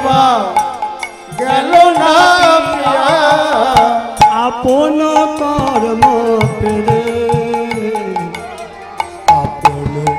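Bengali devotional kirtan music: a hand drum beats a steady rhythm under a gliding melody line.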